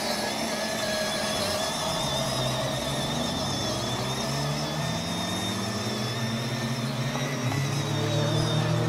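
Electric drive motors and gearboxes of a Power Wheels Jeep Wrangler ride-on toy whining as it drives over grass, the pitch shifting as the load changes and growing a little louder near the end.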